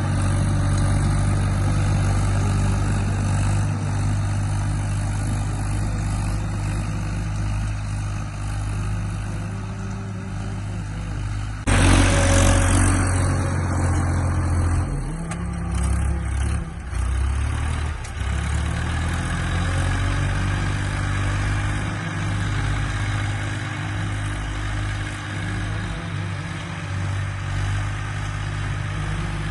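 Tractor engine running steadily while pulling a plough. About twelve seconds in the sound suddenly jumps louder, and the engine note wavers up and down for a few seconds before settling back to a steady run.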